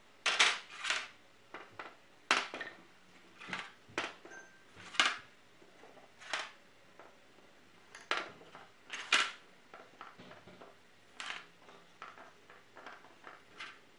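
Steel combination wrenches clinking and knocking as they are picked up off a hardboard bench and slid into the slots of a wooden wrench rack. The clinks come irregularly, the loudest just after the start and about five seconds in.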